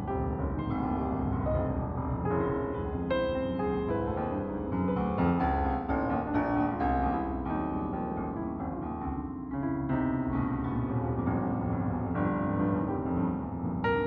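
Instrumental keyboard music with a piano sound: a melody of struck notes that start and fade one after another over low held tones.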